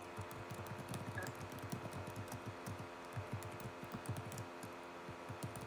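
Typing on a computer keyboard: a continuous run of quick, soft key clicks.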